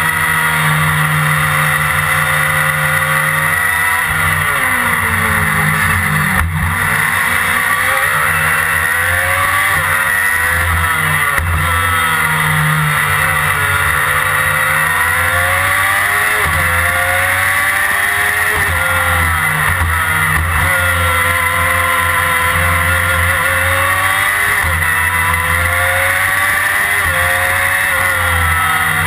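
Onboard sound of a Formula Predator's single-seater's 600cc motorcycle engine at racing speed, its revs rising and falling again and again through the corners. There is a brief knock about six seconds in.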